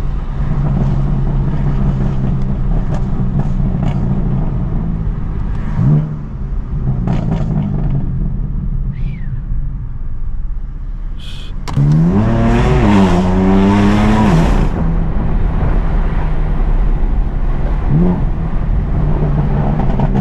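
BMW M4 CS twin-turbo inline-six running steadily while driving, with a few short rises in revs. About 12 s in it goes into a hard acceleration for about three seconds, much louder, its pitch climbing, dropping once, then holding.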